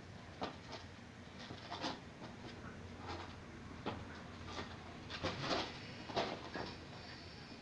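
A puppy playing with a plastic ball on a concrete floor: irregular knocks and scrapes as the ball is pushed, bitten and bumped along, the busiest and loudest a little past five and six seconds in.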